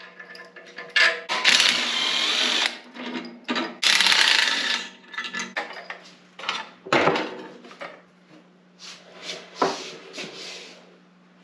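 Cordless DeWalt power driver run twice in short bursts, spinning out the engine-stand mounting bolts. This is followed by a few sharp metal clanks and scrapes as the stand's mounting head comes free of the engine block.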